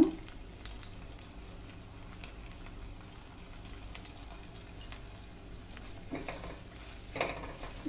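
Hot oil sizzling softly in a kadai as ground spices are tipped onto tempered cumin, garlic, green chilli and curry leaves. Near the end a silicone spatula stirs them, adding a few light scrapes.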